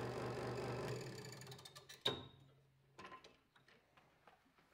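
Hegner Multicut 2S scroll saw running, then switched off about a second in and winding down to a stop. A single sharp click follows about two seconds in, then faint scattered handling clicks.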